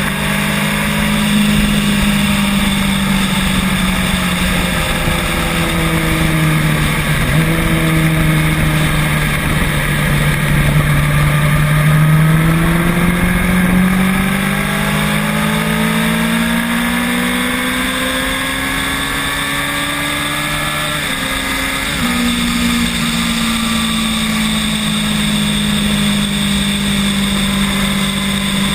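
Electric scooter motor whining as it rides, its pitch sliding up and down with speed and dropping suddenly about two-thirds of the way through, over steady road and wind rumble.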